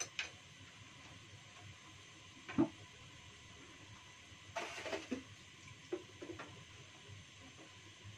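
Quiet kitchen room tone with a few scattered knocks and clicks: a dull thump about two and a half seconds in, a short rattle of clicks near the middle, and two small taps soon after.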